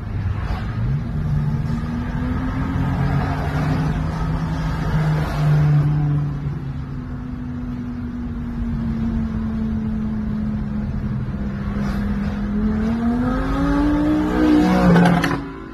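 Car engines running on the road, heard from inside a moving car: a steady engine note that climbs in pitch near the end as the car accelerates, then the sound drops sharply.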